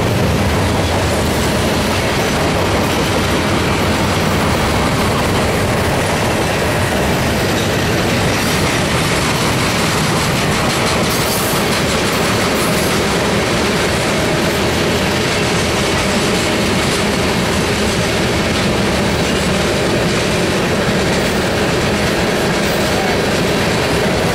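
Norfolk Southern freight train's cars rolling steadily past, steel wheels clattering over the rail joints in a loud, continuous run of clickety-clack.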